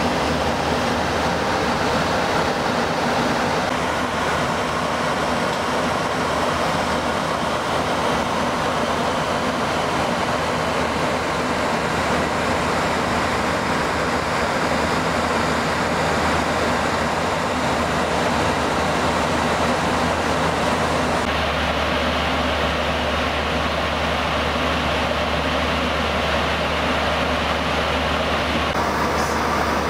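Boeing 737 in cruise flight, heard from inside: a steady rush of airflow with a low engine drone. The tone shifts abruptly about two-thirds of the way through and again near the end.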